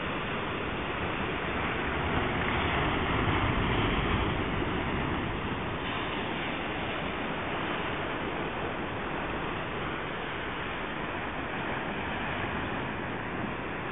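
Sea surf washing in over a rocky shore, a steady rush that swells louder for a few seconds about two seconds in as a wave breaks.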